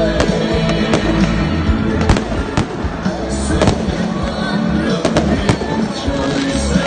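Aerial fireworks going off in a string of sharp, irregular bangs, about a dozen, over loud music.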